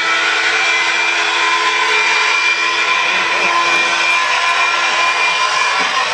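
A loud engine running steadily at high revs, its pitch holding constant, started up on a shouted cue to start the engines.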